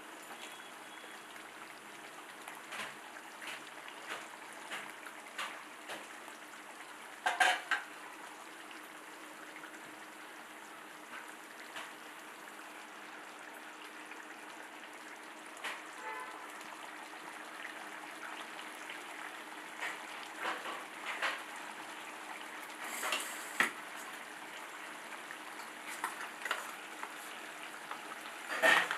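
Chicken gravy simmering and sizzling in a pan with a steady hiss, with now and then a short knock or scrape of the spatula against the pan.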